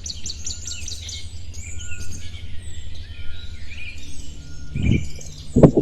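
Small birds chirping and tweeting in quick high calls over a steady low hum, with two sharp knocks near the end.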